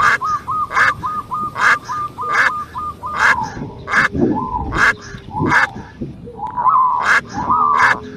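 A chorus of animal calls: sharp calls repeating about once every 0.8 seconds, over a fast chirping trill in the first three seconds and warbling calls near the end.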